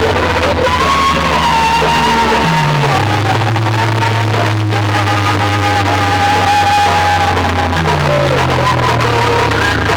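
Loud music with heavy, sustained bass played through a DJ sound system. The bass notes slide to a new pitch twice, and a held melody line runs above them.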